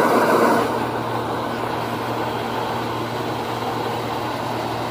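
Combine harvester running steadily with a constant low hum while it unloads shelled maize into a trolley. A louder rush of noise comes in about the first half second.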